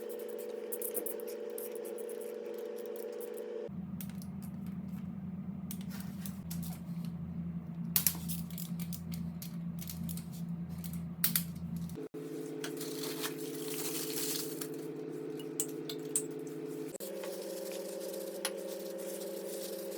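Background music of sustained, steady chords that change every few seconds, with a few sharp metallic clicks about 8 and 11 seconds in.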